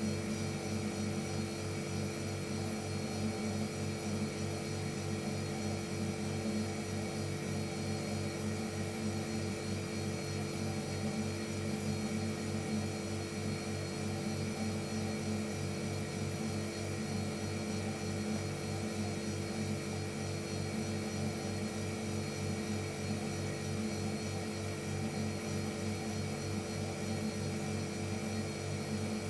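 Refrigerator compressor motor running: a steady hum made of several fixed tones with a fast low flutter, unchanging throughout.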